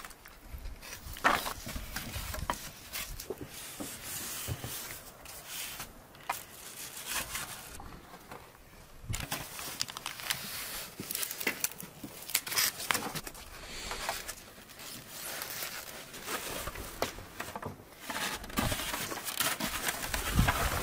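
Foam takeaway boxes being handled and filled with rice and fried fish: irregular rustles, squeaks and light knocks of the foam box, with a metal serving spoon scooping rice from a large pot.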